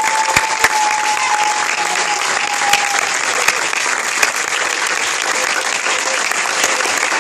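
Crowd applauding steadily, a dense patter of many hands clapping. A single long held tone sounds above the clapping for about the first three seconds.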